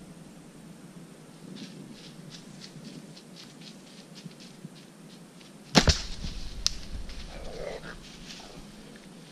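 Compound bow shot from a tree stand: one loud, sharp crack of the string about six seconds in, then the arrow's strike and a short animal cry from the coyote a moment later. Before the shot there are faint, regular crackles of steps in dry leaves.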